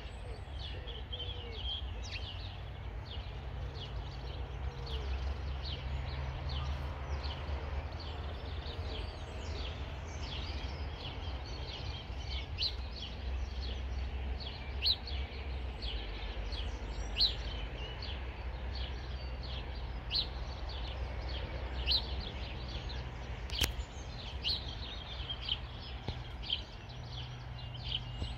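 Small birds chirping and singing repeatedly from the surrounding hedgerows, over a steady low rumble of outdoor background noise, with a few sharper clicks in the second half.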